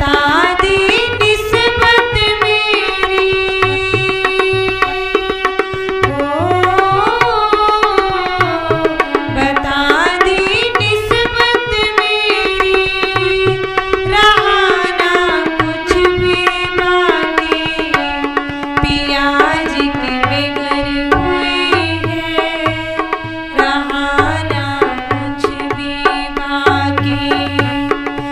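Indian devotional music: tabla keeps a steady rhythm under a melody of long held notes with occasional slides in pitch.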